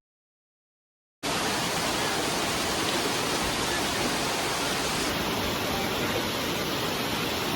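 Steady, even rush of water, such as heavy rain or a fast valley stream. It starts abruptly about a second in, after a moment of silence.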